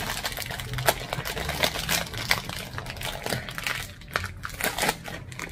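Chip bag crinkling and crackling in a dense run of sharp crackles as it is tugged at by hand and bitten at with the teeth to force it open.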